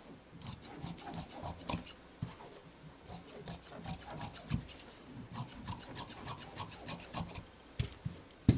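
Tailor's shears cutting through knit fabric: quick runs of snips in three bursts with short pauses between them. A single sharp thump near the end is the loudest sound.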